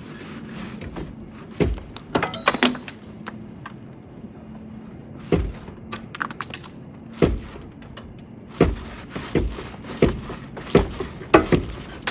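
Chimney brush being worked through a wood-stove flue: irregular knocks and scraping clatters against the pipe in short clusters as chunks of wet creosote are broken loose.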